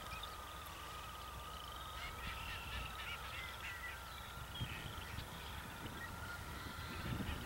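Wild waterfowl honking at a distance, with Canada geese in the flock. The calls cluster about two to three seconds in, over a continuous high trilling and a low rumble of wind.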